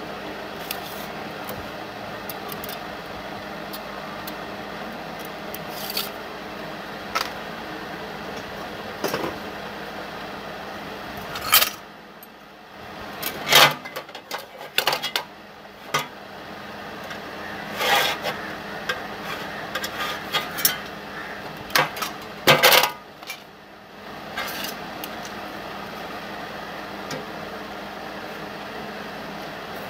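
Steel parts clinking, knocking and scraping as a square steel tube is handled and fitted against a steel plate, in scattered strokes with a few louder knocks in the middle, over a steady low hum.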